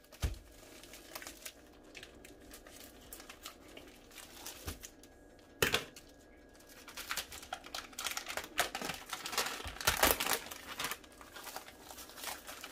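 Plastic packaging around a pack of spring roll wrappers crinkling and tearing as it is opened and pulled off. The crackling is sparse at first and grows thicker and louder in the second half, with one sharp click about halfway through.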